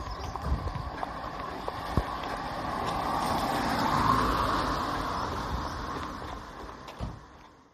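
A vehicle passing on the road, its noise growing louder to a peak about halfway through and then fading, with scattered thumps and clicking. The sound cuts off suddenly near the end.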